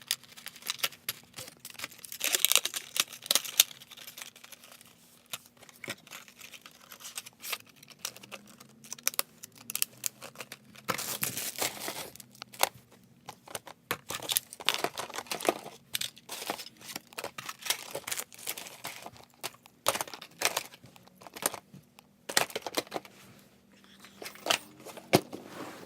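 Plastic packaging and bags of soft-plastic baits crinkling and rustling, with irregular clicks and knocks of hard items as fishing gear is packed back into a tackle box.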